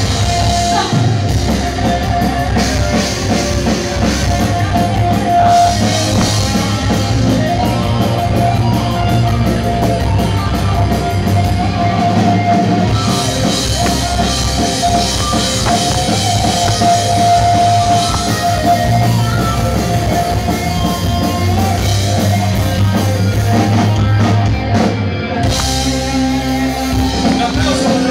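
Live rock band playing loudly, with drum kit, guitar and a singer's voice.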